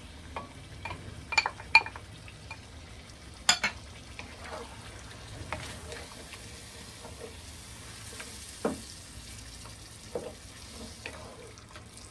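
Chicken frying in a pan with a steady sizzle as yogurt is stirred in with a wooden spoon, the spoon scraping and giving a few sharp knocks against the pan, the loudest about three and a half seconds in.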